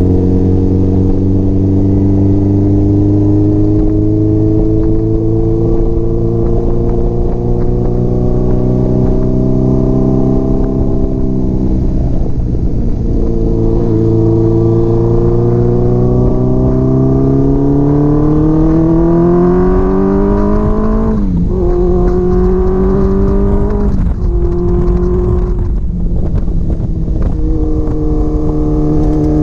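Honda CBX750 cafe racer's inline-four engine running under way, with wind rushing past. It holds steady revs at first, eases off about halfway, then climbs in pitch and drops sharply at a gear change about two-thirds through, with another shift a few seconds later.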